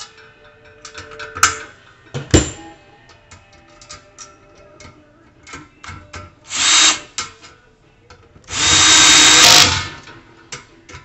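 Power drill driving screws in two runs, a short one about six and a half seconds in and a longer one near the end, each with a steady motor whine. Before them come clicks and a sharp knock of metal grill parts being handled.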